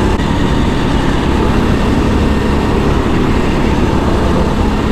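Go-kart engine running steadily at racing speed, heard from the driver's seat.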